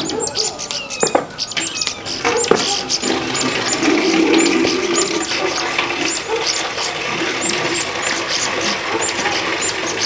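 Outdoor ambience: a short, high chirp repeated about twice a second, a few sharp clicks in the first few seconds, and a low murmur from about three seconds in.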